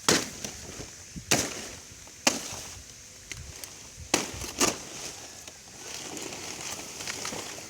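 A blade chopping into a felled banana plant: about five sharp, irregularly spaced strikes, two of them close together just past the middle.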